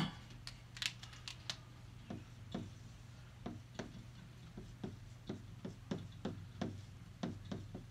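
Marker drawing on a whiteboard: a run of short taps and scrapes as the lines go down, with a few sharper clicks in the first second and a half. A low steady hum runs underneath.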